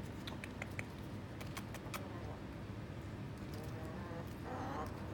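Backyard chickens: a few faint clicks and short chirps over a steady low hum, then a brief wavering hen cluck from about three and a half seconds in.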